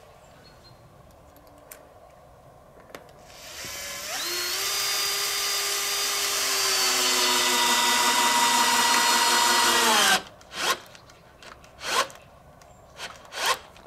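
Cordless drill-driver driving screws into wooden boards. About four seconds in, the motor whines up in pitch and runs steadily for about six seconds, then winds down. A few short clicks follow.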